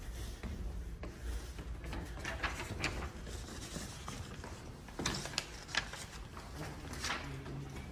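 Footsteps on hard stairs and floor, a few irregular knocks and scuffs over a low steady rumble.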